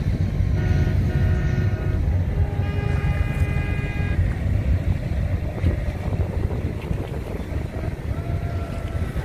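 Wind buffeting the microphone with a steady low rumble, while boat horns sound across the water: two steady horn blasts, each about a second and a half long and at different pitches, in the first four seconds, and a fainter horn near the end.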